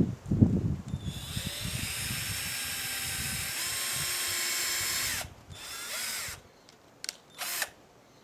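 Ryobi battery-operated cordless drill running steadily for about four seconds, then a shorter run and two brief trigger bursts. A few thumps come before the drill starts.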